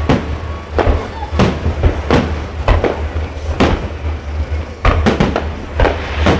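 Fireworks shells bursting overhead in a rapid series of sharp bangs, roughly one or two a second, with a quick cluster of several bangs about five seconds in.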